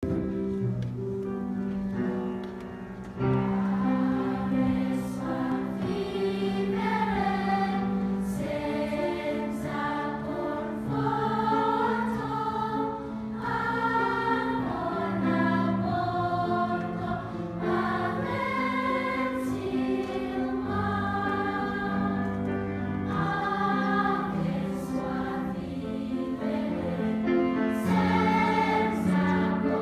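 Children's choir singing a song in Italian, several voices together over sustained low accompaniment notes.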